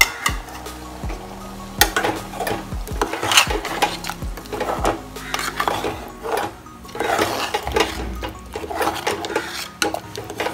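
Metal spoon stirring chicken masala in a pressure cooker pot, scraping and clinking against the pot in repeated strokes that start about two seconds in.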